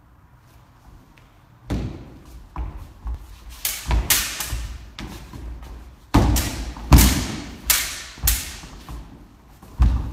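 Sabre fencers' feet thudding and stamping on a wooden floor as they advance and lunge, mixed with sharp clacks of the sabre blades meeting: a string of about a dozen sudden hits starting a couple of seconds in, some clustered closely together.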